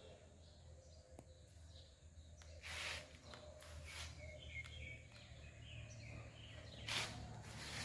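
Faint outdoor ambience with a few soft bird chirps about halfway through, and two brief rushes of noise, one about three seconds in and one near the end.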